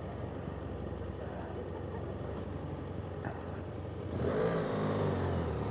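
BMW F800GS parallel-twin motorcycle engine running at low city speed. It gets louder about four seconds in, its pitch rising and falling as it revs.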